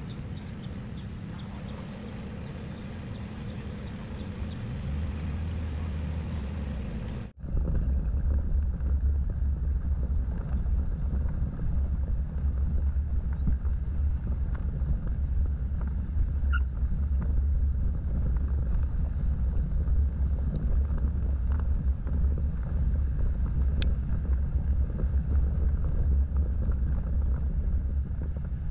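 Off-road vehicle driving, a steady low rumble of engine and tyres. About seven seconds in, the sound cuts abruptly to another stretch of driving where the low rumble is louder.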